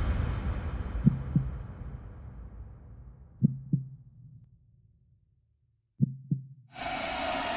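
A slow heartbeat sound effect: three double beats (lub-dub) about two and a half seconds apart, over a deep rumble that fades away. Near the end a steady rushing noise starts.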